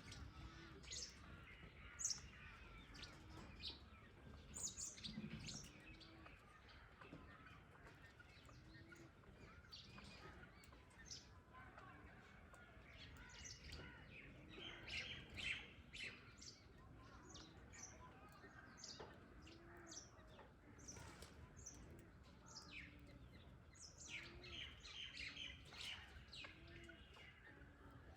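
Faint bird chirping: many brief, sharp high calls scattered irregularly, with a softer low note repeating every second or two in the background.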